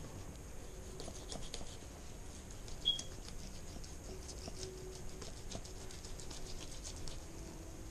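Knife slicing along the back of a northern pike while filleting it: a run of small scratchy clicks and crackles as the blade cuts and the slimy fish is handled, with one sharper click about three seconds in.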